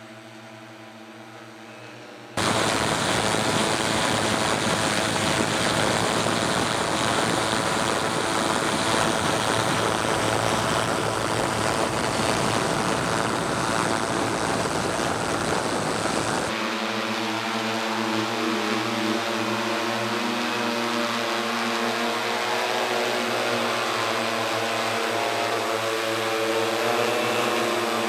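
Tarot T960 hexacopter's brushless motors and propellers whining in flight, starting abruptly a couple of seconds in as a loud rushing hiss. About halfway through it changes to a clearer whine of several tones drifting up and down together.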